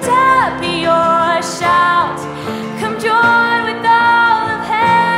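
Female vocalist singing a worship song, holding and bending notes, accompanied by acoustic guitar.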